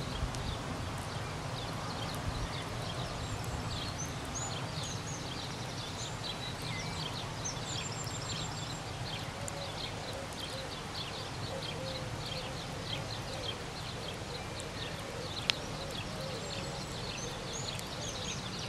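Small birds chirping and trilling over a steady low outdoor rumble, with one sharp crack about fifteen seconds in.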